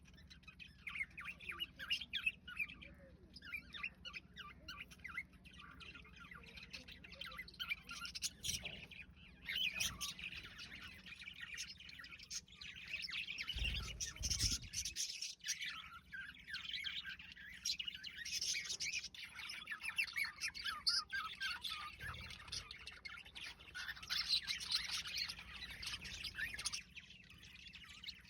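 A group of budgerigars chattering continuously with fast chirps, warbles and squawks. There is a low thump a little past halfway.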